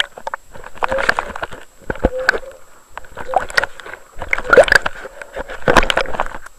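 Water sloshing and gurgling around an underwater camera as it is swept through shallow water, in crackling surges a little over a second apart.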